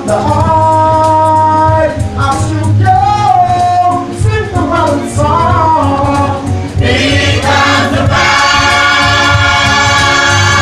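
Church choir singing. About seven seconds in, the singing grows fuller and brighter as more voices come in together.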